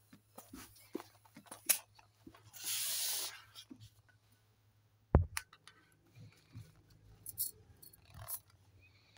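An inflated long modelling balloon being handled: rubber rubbing, with small clicks and scrapes. A brief rushing noise comes about two and a half seconds in, and a single sharp thump about five seconds in is the loudest sound.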